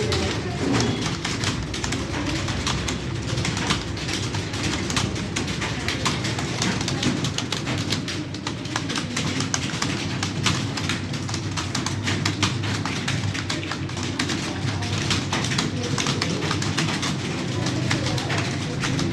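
Fast, continuous computer keyboard typing: a dense, irregular stream of key clicks. A low, steady drone runs underneath.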